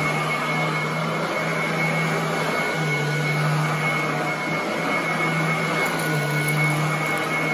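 Royal commercial upright vacuum cleaner running on carpet, a steady motor noise with a high whine over it. The low motor note shifts slightly every second or two as the head is pushed back and forth.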